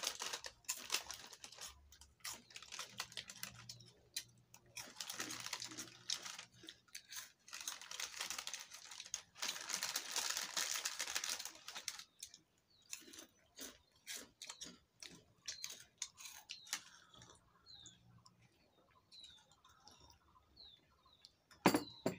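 Small plastic snack sachets crinkling and rustling in the hands as their contents are pinched out and eaten, with some chewing. The rustling is dense for about the first twelve seconds, then thins to scattered light clicks and crackles.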